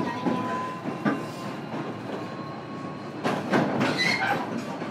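JR Kyushu 305 series electric train running at speed, heard from inside a motor car: wheels clack over rail joints, with a dense run of clacks about three seconds in. A thin steady whine from the Toshiba VVVF inverter drive fades out about a second in.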